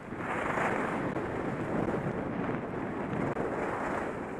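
Wind rushing over the microphone of a helmet camera on a skier moving downhill, mixed with the hiss of skis running over packed snow. The rush swells right at the start and then holds steady.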